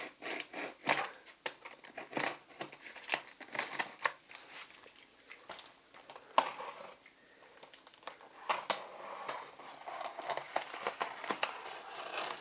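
A cardboard box being opened by hand: aged packing tape peeled away and cardboard and paper handled, an irregular run of crinkling and crackling with a sharp snap about six seconds in.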